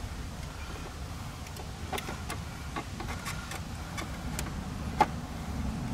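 Scattered small clicks and taps of hands fitting a car door speaker and its screws, over a steady low rumble.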